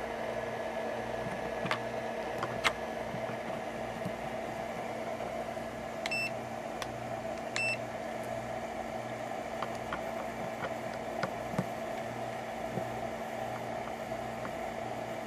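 Steady hum of a power supply's cooling fan, with a few faint clicks early on. About six seconds in come two short electronic beeps a second and a half apart.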